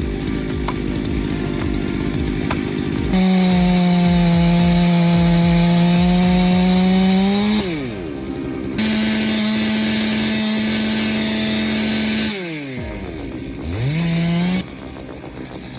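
Chainsaw cutting into a red oak: the engine runs low and uneven for about three seconds, then holds full throttle through two long cuts of about four seconds each. The pitch drops between the cuts, and a quick drop and re-rev comes near the end before the saw falls back.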